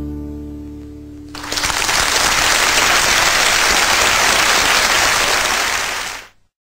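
The guitars' final chord rings and fades for about a second, then the studio audience applauds, and the applause cuts off suddenly near the end.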